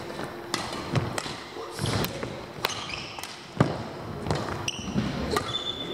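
Badminton rackets striking a shuttlecock in a rally, a string of sharp irregular hits with the loudest about three and a half seconds in, mixed with short squeaks of court shoes on the hall floor near the end.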